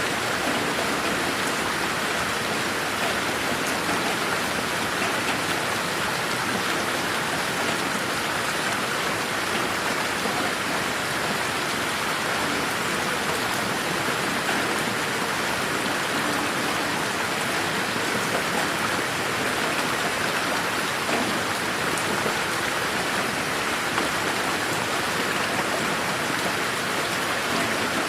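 Steady rain falling in a garden, an even hiss of drops with no thunder. The sound is processed in 8D, panned around the listener.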